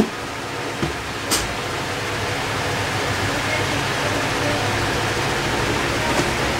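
A steady background hum and hiss, with a few soft clicks and rustles in the first second and a half as moss and packing fibre are handled; one click is sharper than the others.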